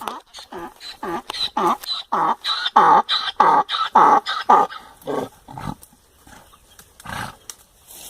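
A chicken cackling in a run of loud, repeated calls, about two a second, which fade out about six seconds in. A single thump follows about a second later.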